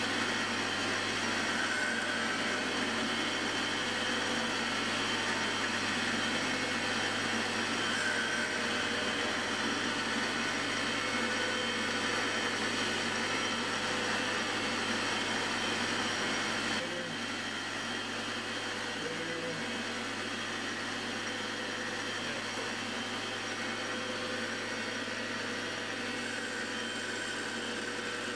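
MX-180D 7x12 mini metal lathe with its 600 W motor running steadily while turning down the end of a shaft, a mix of motor whir and gear and spindle noise. About two-thirds of the way through the sound drops a little in level and carries on steady.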